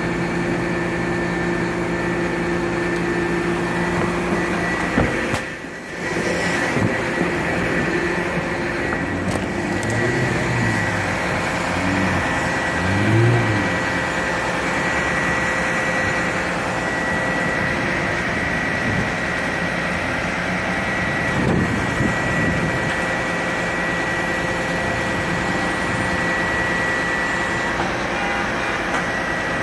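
Truck-mounted crane's engine running steadily amid street traffic, with a couple of short rising-and-falling whines about ten to fourteen seconds in.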